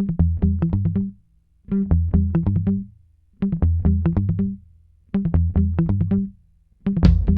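Intro music: a plucked bass or guitar riff played in four short phrases with brief pauses between them, then a full band with drums comes in near the end.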